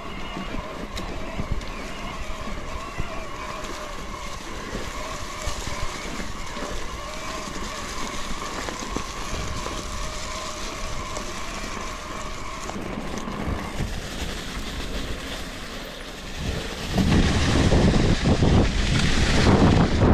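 Riding noise from a bicycle on the move: a steady, slightly wavering hum for most of the stretch. About three-quarters of the way through, loud wind starts buffeting the action camera's microphone.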